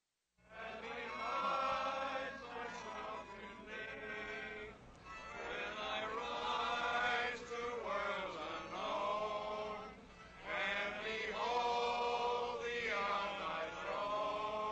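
A group of voices, mostly men's, singing a slow hymn in long held phrases, with short breaks between phrases.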